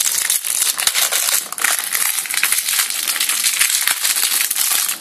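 Clear plastic wrapper of a chocolate bar crinkling continuously as it is handled and pulled open right next to the microphone.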